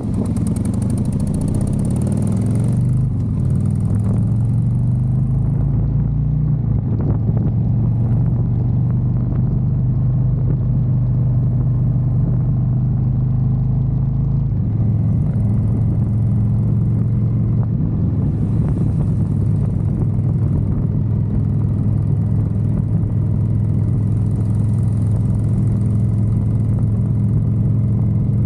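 Motorcycle engine running steadily under way, its note shifting a couple of times, with wind noise on the microphone in the first few seconds.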